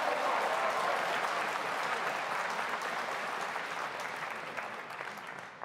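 Audience applauding, the clapping slowly fading and dying away near the end, with a few last single claps.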